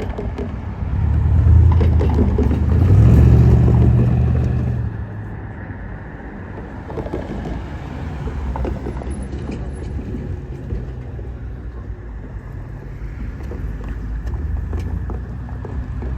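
Railway train running, a low mechanical rumble that swells louder for a few seconds about a second in, then settles to a steadier, quieter run.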